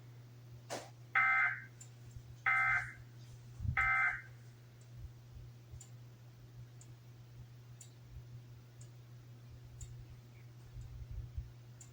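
Emergency Alert System end-of-message signal: three short bursts of SAME digital data tones, about a second apart, closing the test alert. A faint steady hum runs underneath.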